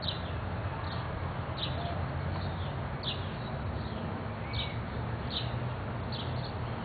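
Young bird chirping: short, high, downward chirps repeated about once a second, over a steady low background rumble.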